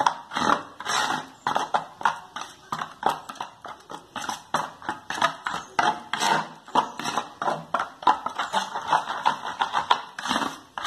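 Metal spoon stirring thick batter in a stainless steel bowl, clacking against the bowl in a quick, even rhythm of about two to three strokes a second.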